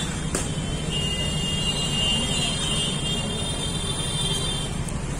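Steady low rumble of road traffic, with a metal spatula clicking against a flat steel griddle about half a second in. A high, slightly wavering whine sounds over it for a few seconds in the middle.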